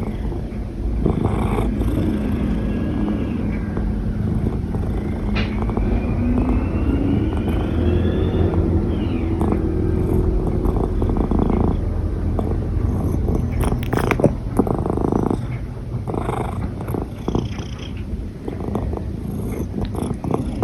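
A domestic cat purring steadily, the purr broken now and then by short, sharp hiccup jolts at irregular intervals.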